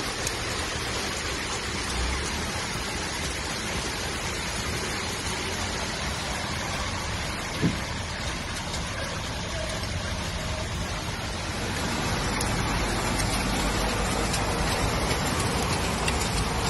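Heavy rain pouring down in a steady, even hiss, growing a little louder about two-thirds of the way through. A single short knock sounds about halfway through.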